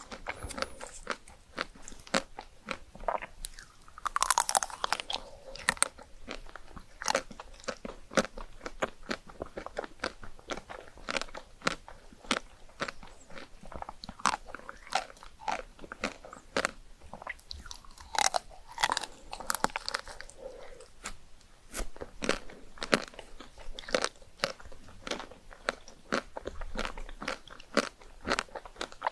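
A person biting and chewing chocolate ice cream, a dense run of sharp crackling clicks throughout, with louder bursts of biting about four seconds in and again about two-thirds of the way through.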